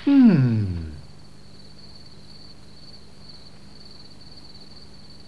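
A man's voice makes one drawn-out sound that falls steeply in pitch over about a second, the sleepy sound of someone settling down to sleep. After it, crickets keep up a faint, steady high chirring.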